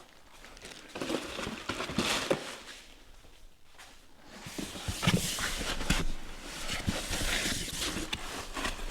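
Packaging being handled during an unboxing: irregular rustling with small knocks and clicks, quieter for a moment in the middle and busier again after.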